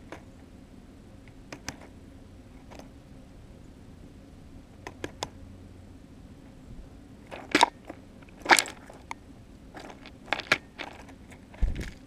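Tufted titmouse pecking and cracking seeds in a seed pile right at the microphone: scattered sharp crunching taps, faint at first, with a louder cluster in the second half. A low thump sounds near the end.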